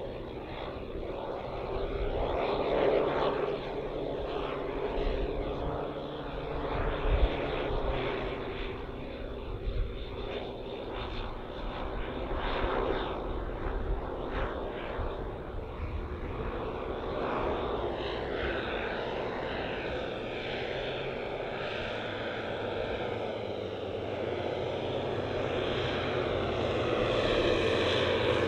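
The twelve OS 10 cc model engines of a 1:10 scale Dornier Do X flying-boat model droning steadily in flight, getting louder over the last few seconds as the model comes closer.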